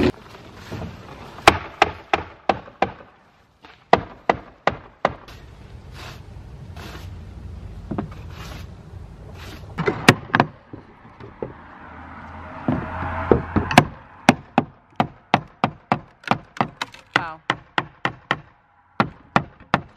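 Hammer driving nails into a wooden roof deck board, a series of sharp strikes. Scattered blows give way to a quick run of about three strikes a second near the end.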